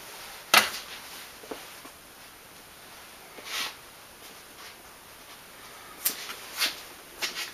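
A few sharp clicks and knocks of handling on a workbench, the loudest about half a second in and three or four lighter ones near the end, with a short breathy hiss about halfway through, over a faint steady background hiss.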